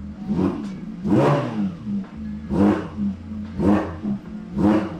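Porsche 992 GT3's naturally aspirated 4.0-litre flat-six, stationary with the sport exhaust mode on, blipped about five times in quick succession. The second rev is the biggest, and it drops back to idle between blips.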